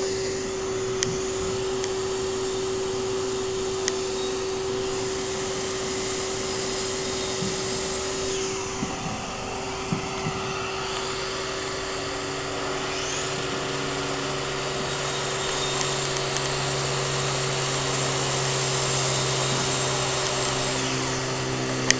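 Steady motor hum of a bee vacuum running, holding one pitch throughout. About halfway through, a second, lower hum joins in, and a few faint knocks sound over it.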